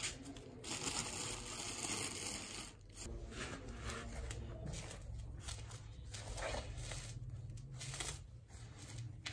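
Thin blue plastic bag crinkling and rustling as hands open and work it, in irregular crackles from about a second in.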